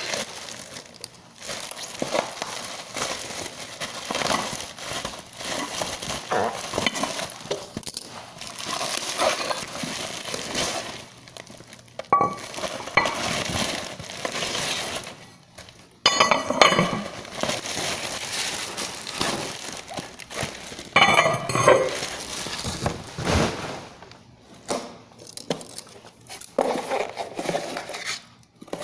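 Plastic bubble wrap crinkling and rustling as it is pulled off ceramic dishes, in irregular handfuls with short pauses, with an occasional light clink of the dishware.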